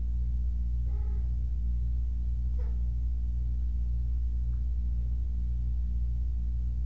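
Steady low hum with a slow pulsing, with two faint, short kitten mews about one second and two and a half seconds in.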